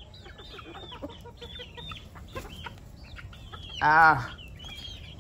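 Domestic chickens feeding, with a run of short, faint clucks and one louder, drawn-out call with a wavering pitch about four seconds in.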